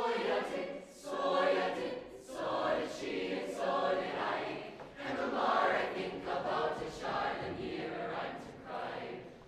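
Large mixed-voice show choir singing together in harmony, in short phrases that swell and break roughly once a second.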